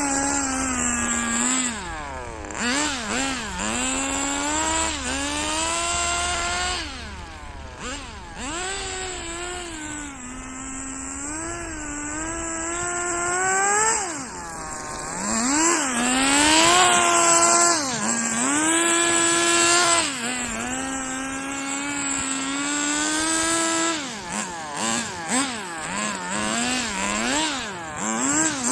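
Small engine of a radio-controlled drift car running under changing throttle. The pitch holds for a second or two at a time, then dips and climbs again, with several quick throttle blips near the end.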